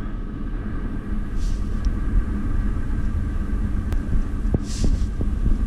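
Steady low rumble of a vehicle in motion, heard from inside a closed cardboard box being carried as a parcel, with a couple of brief soft hisses and small clicks.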